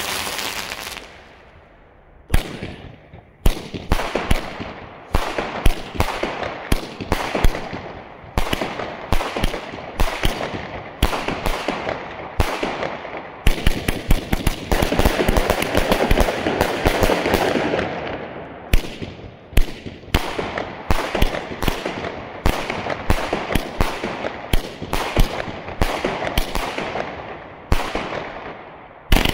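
A consumer fireworks battery firing a long string of shots, about two a second, with hissing and crackling between them as the stars burst overhead. The shots begin about two seconds in, after a short stretch of fading hiss.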